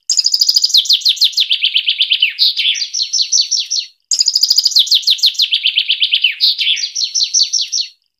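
A songbird singing a fast, tightly packed song of quick downward-sliding notes, about eight a second, in two runs of about four seconds, each cut off abruptly as an edited recording.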